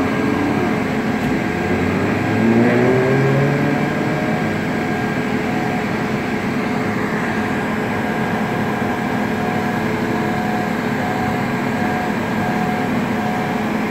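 Steady drone of idling heavy vehicle engines, with an engine briefly rising in pitch about two to three seconds in. A faint short beep repeats about once a second through the second half.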